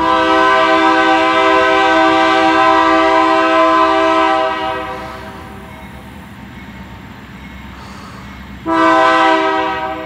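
Kansas City Southern diesel locomotive's multi-note air horn sounding one long blast of about four and a half seconds, then a short blast near the end, as the train approaches.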